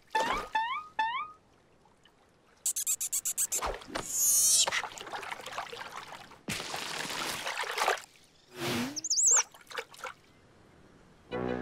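A run of cartoon sound effects: quick rising squeaky glides, a rapid clatter of clicks, a loud whoosh, a long rush of splashing water, and a high warbling whistle about three-quarters of the way through.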